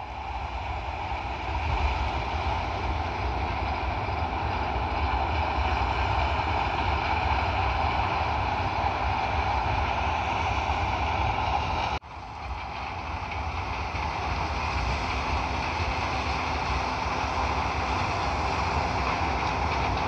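Corn-harvest farm machinery running steadily under a low engine hum, with a dense mechanical noise over it. The sound breaks off for an instant about twelve seconds in, then carries on the same.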